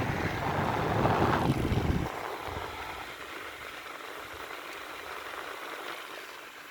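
Tecnogas TBF-615 6-inch mini box fan blowing, its air buffeting the microphone, until about two seconds in, when the rush drops off sharply and a much quieter steady whir carries on.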